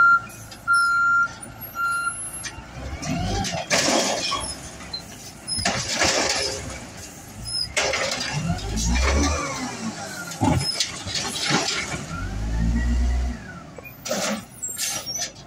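Diesel Peterbilt 320 side-loader garbage truck's automated arm picking up and dumping a wheeled trash cart: two short beeps near the start, a few loud bangs as the cart is shaken out over the hopper, then the engine revving up and back down twice as the hydraulics work the arm and set the cart down.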